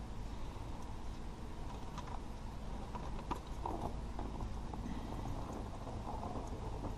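Engine oil trickling and dripping into a plastic drain pan as the drain plug of a Kymco Agility 50 scooter is slowly unscrewed by hand, with a few light clicks and ticks over a steady low background noise.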